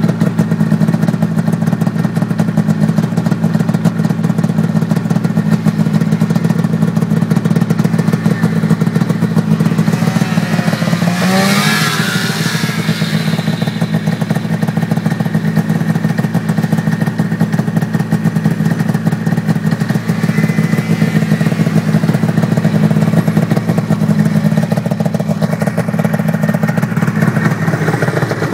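Arctic Cat two-stroke snowmobile engine running at a steady, high throttle, its pitch holding level throughout. About a third of the way in a rushing hiss briefly swells with a short dip and rise in pitch.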